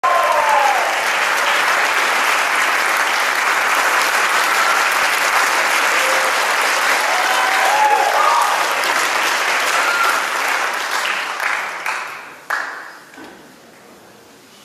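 Audience applauding in a concert hall. The clapping dies away about twelve seconds in.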